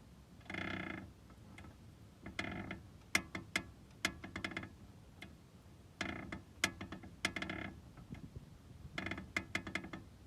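Worn front right ball joint of a Hyundai Accent's suspension squeaking in repeated short creaks, about six over ten seconds, with sharp clicks between them. The squeak comes from dirt and moisture getting in through its torn dust boot.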